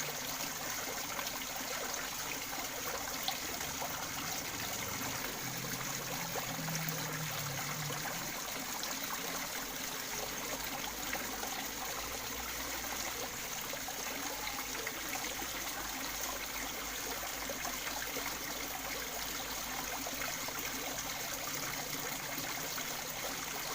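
Water running and trickling steadily in a fish pond, an even, unbroken sound.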